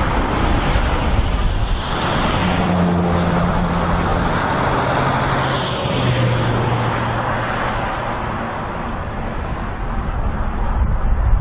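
Double-stack intermodal freight train's cars rolling past, their wheels running on the rails in a steady, unbroken noise. A low hum drops in pitch in steps from about two seconds in to about eight seconds in.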